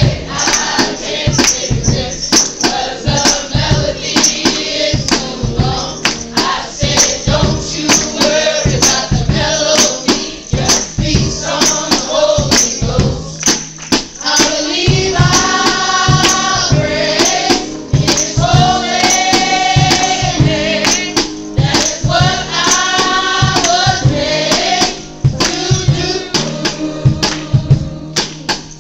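Gospel worship music: a group singing over a tambourine struck on a steady beat. About halfway through, long held sung phrases stand out for several seconds.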